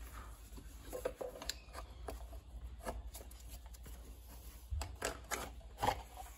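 Gloved hands with a rag unscrewing a loosened plastic cartridge oil filter housing cap by hand: soft rustling of cloth with scattered small clicks and knocks of plastic and metal.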